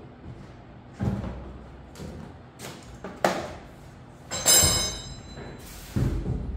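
Cardboard packaging and bike parts being handled: a run of about four thuds and knocks. The loudest, about four and a half seconds in, has a short metallic ring, as of a metal part or tool knocking.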